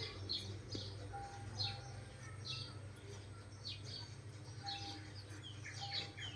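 Small birds chirping in short high notes that drop in pitch, about one a second, over a steady low hum.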